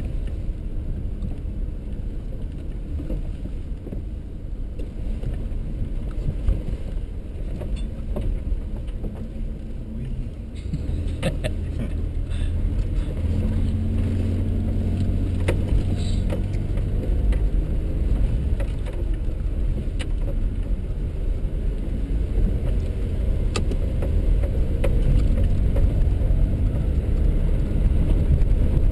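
4x4 driving on a rocky dirt trail, heard from inside the cab: a steady low rumble of engine and tyres on rough ground, with a few sharp clicks. The engine note grows steadier and a little louder about a third of the way through.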